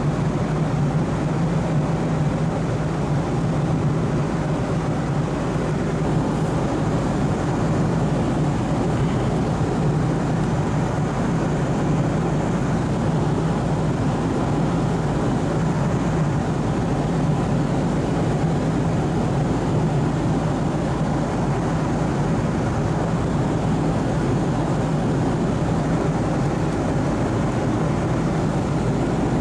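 Steady cabin drone of an Airbus A330-200 in flight: engine and airflow noise heard from inside the passenger cabin, an even rushing sound with a low hum underneath.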